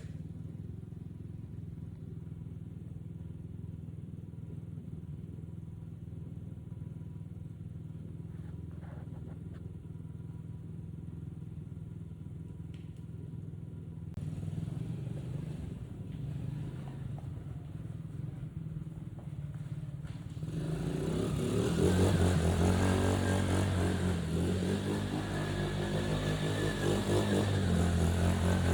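Coolster 125cc ATV's small single-cylinder four-stroke engine running, a steady, fairly quiet hum at first. It gets louder about halfway through and much louder about two-thirds of the way in, its pitch rising and falling as the throttle changes.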